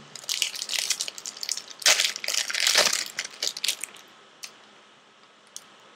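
Trading card packaging being torn open by hand: crinkling, ripping wrapper and cardboard noise for about three seconds, loudest near the middle, then only faint handling.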